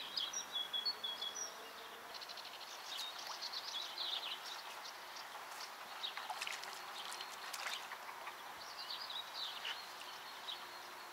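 Several small songbirds chirping and trilling in short high calls, over a faint steady background hiss.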